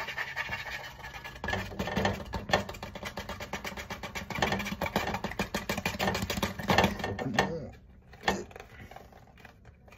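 Countertop blender running on mango, with dense rapid rattling over a steady motor hum that stops about seven and a half seconds in; the mango is sticking in the jar.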